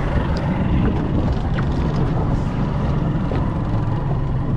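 Boat engine running steadily, a low, even rumble with wind noise over it.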